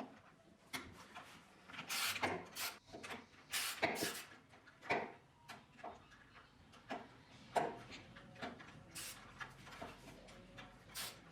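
Wooden workpieces being handled: irregular knocks and short scrapes of wood on wood.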